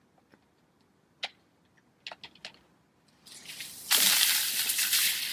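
A bucketful of rice tipped over a person's head, pattering down onto him and the ground. It starts faintly about three seconds in, is loudest a second later, then tails off. A few small knocks come before it.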